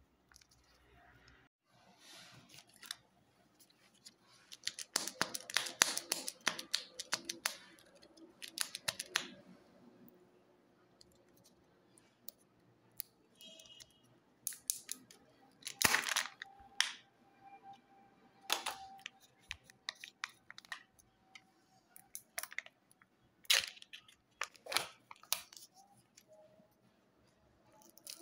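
Kinder Joy egg packaging being handled and opened: plastic egg shells and foil crinkling and crackling in a dense stretch a few seconds in, then the foil seal on a plastic egg half peeled back, with scattered sharp clicks and snaps of the plastic.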